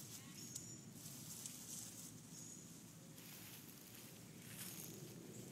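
Faint rustling and scuffling in dry leaf litter, with a few brief, high, faint chirps.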